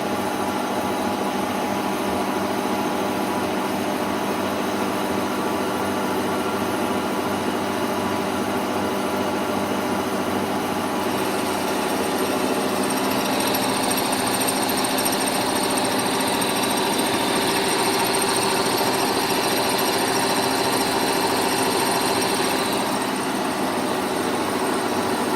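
K62 lathe headstock running on its first test after a spindle bearing replacement: a steady mechanical hum of motor and gears with several steady tones. About 11 seconds in, a higher whine joins and keeps on to the end.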